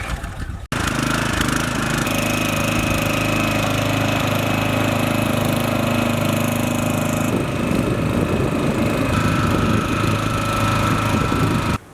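Light aircraft's piston engine running steadily, its tone changing about seven seconds in.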